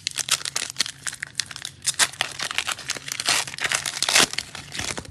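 Foil wrapper of a trading-card pack being torn open and crinkled by hand: a dense, irregular run of crackling and tearing.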